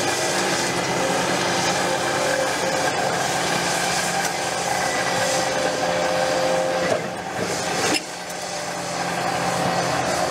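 Caterpillar 330F excavator's diesel engine and hydraulics running steadily under load, with a steady whine, over a scraping and rasping of concrete rubble and steel rebar. The level dips briefly about seven seconds in, and a sharp click follows.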